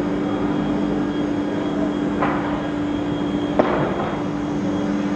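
A multi-rip circular saw line for plywood and its dust extraction running with a steady hum. Two sharp wooden knocks, about two and three and a half seconds in, come from cut plywood strips being handled.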